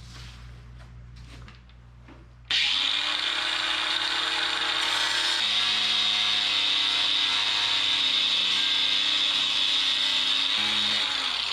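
A handheld power tool cutting away a corner of a plastic ride-on toy body to clear the tires. It starts suddenly about two and a half seconds in and runs steadily, its motor pitch dropping as it bites into the plastic and rising again shortly before it stops near the end.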